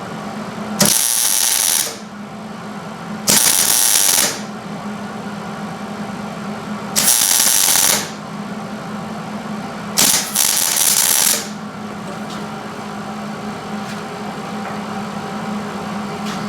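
Welder laying weld in four bursts of about a second each, crackling and hissing, over a steady low hum. It is building a puddle of weld onto a steel exhaust manifold stud broken off inside an aluminium cylinder head, so the stud stands proud enough to take a nut.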